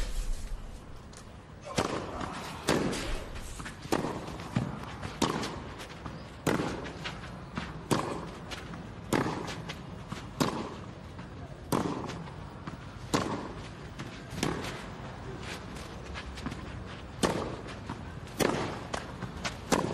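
Tennis rally: rackets striking the ball about once every 1.3 seconds, around fifteen shots back and forth starting from a serve, each hit ringing briefly.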